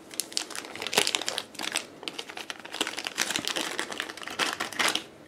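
Clear plastic bag crinkling and rustling in irregular crackles as hands unwrap a small camera from it.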